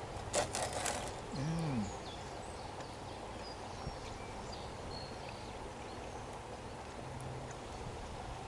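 A few sharp clicks, then a short hummed 'mmm' that rises and falls in pitch, from a man tasting a bite of grilled beef, over a steady background hiss.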